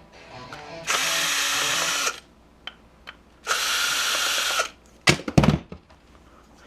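A small power tool runs in two bursts of about a second each, followed by a few sharp clicks and knocks.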